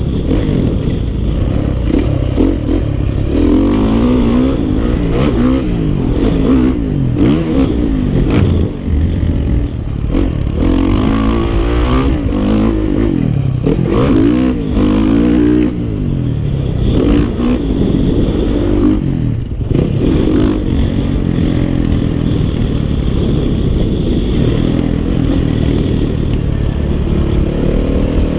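Dirt bike engine being ridden hard, its pitch climbing and dropping again and again as the rider revs through the gears and backs off.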